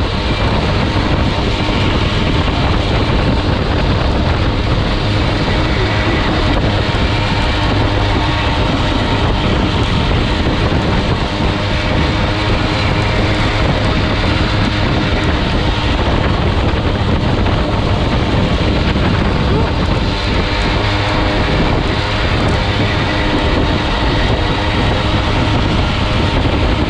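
Derny pacing motorbike's engine running steadily just ahead, mixed with heavy wind rush on the microphone at racing speed.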